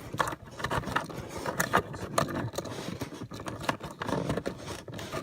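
Irregular scraping and rustling with scattered light clicks: hands working wiring and plastic trim around a car seat.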